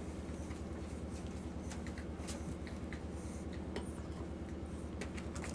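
Puppies scuffling, their paws scratching and pattering on a rug and cushion in scattered small clicks and scrapes, over a steady low hum.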